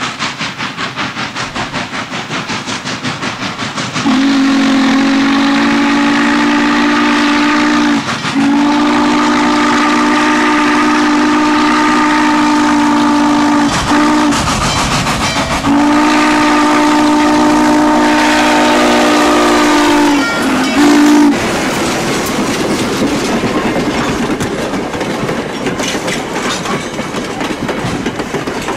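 Norfolk & Western Class J No. 611 steam locomotive approaching, its exhaust beating rhythmically. It then sounds its chime whistle in three long blasts and a short one as it passes. The coaches follow with a clickety-clack of wheels over the rail joints.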